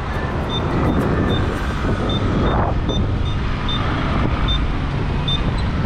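Wind rush on the microphone and road noise from a moving electric scooter, with no engine sound. A short high beep repeats steadily about every 0.8 seconds.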